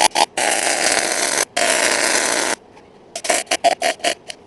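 Wire-feed welder arc crackling in stitch bursts: two runs of about a second each, a short pause, then a string of quick bursts several a second.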